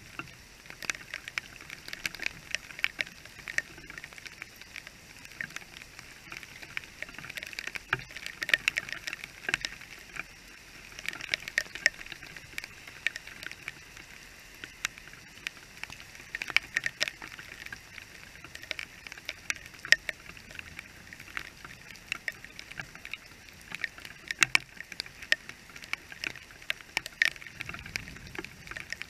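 Heavy rain pattering, with drops striking close to the microphone in many sharp, irregular ticks over a steady hiss.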